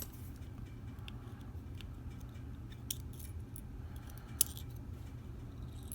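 Light metallic clicks and ticks of steel tweezers picking the pin tumblers and springs out of a Stanley 24/7 padlock's core, scattered and irregular, with the sharpest click about four and a half seconds in.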